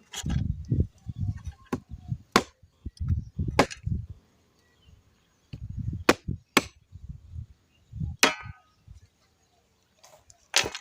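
Repeated chopping with a knife on a cutting surface: dull low thuds in short runs, with sharp knocks about a second or so apart and brief pauses between runs.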